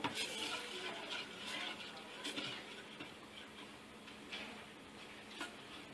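A spoon stirring coconut milk in a small stainless steel pot, giving faint, irregular taps and scrapes against the pot's sides.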